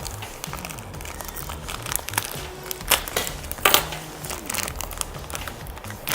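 Plastic packaging of a toy surprise ball crinkling and crackling as it is handled and worked at, with a few sharp clicks about three and almost four seconds in. Faint music underneath.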